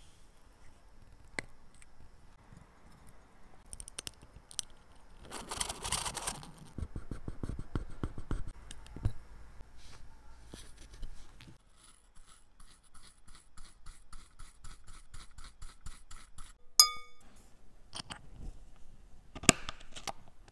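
Small clicks, taps and scrapes of watchmaker's hand tools on a chronograph watch movement: hand levers lifting off the hands, and putty pressed on the dial and plates to pick up glass fragments. There is a longer scrape about a quarter in, a run of fast even ticks in the middle, and a short ringing ping near the end.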